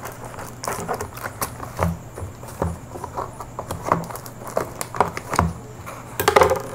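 Scissors snipping through the plastic wrapping on a cardboard box: irregular clicks and light knocks. A louder rustle near the end as the wrapping is pulled away by hand.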